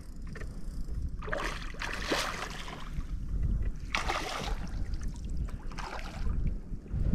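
A hooked redfish thrashing and splashing at the surface beside a landing net, in three bouts: the first and longest about a second in, then shorter ones near the middle and toward the end. Steady wind rumble on the microphone underneath.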